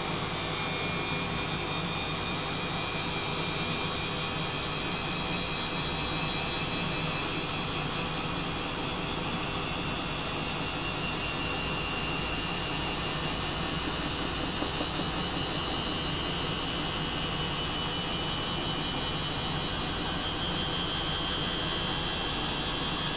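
Washing machine running with a steady rush and a high motor whine that rises slowly in pitch, as the drum gradually speeds up.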